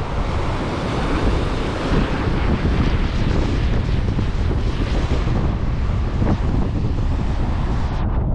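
Wind buffeting the microphone over the steady rush of ocean surf. Just before the end the higher hiss drops away suddenly.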